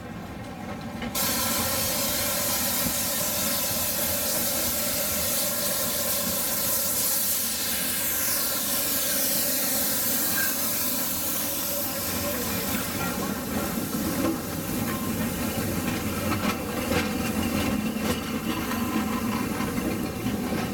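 Narrow-gauge steam locomotive passing close by. A loud steady hiss of escaping steam cuts in sharply about a second in. In the second half, the clicking of wheels over the rails comes through the hiss as the carriages roll past.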